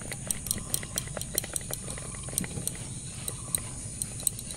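Biryani being turned with a spoon in a steel pot: irregular light clicks and scrapes of metal on metal, several a second, over a steady high hiss.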